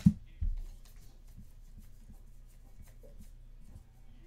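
Trading cards being handled at a table: a sharp knock as cards are set down at the start, a duller thump about half a second later, light flicking and sliding of cards, then another sharp knock near the end.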